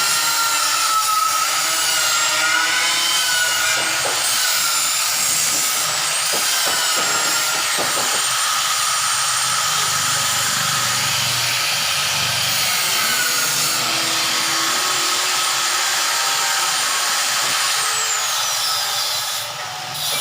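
A handheld power tool running steadily, with a high whine that wavers in pitch and drops near the end.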